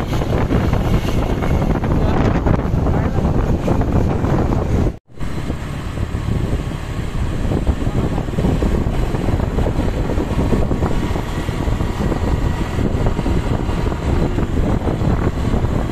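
Heavy wind buffeting the microphone over a vehicle's road and engine noise, with no horn heard; the sound cuts out briefly about five seconds in.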